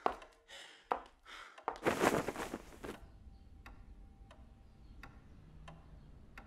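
A few sharp clicks, then a short rushing noise about two seconds in, followed by soft, evenly spaced ticks a little faster than one a second.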